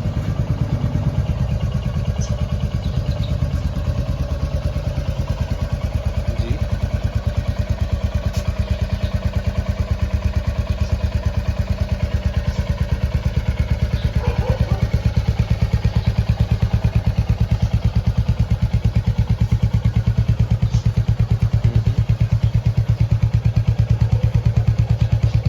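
Royal Enfield Hunter 350's single-cylinder engine running steadily at idle through its stock exhaust, with an even, regular pulse, getting a little louder about halfway through.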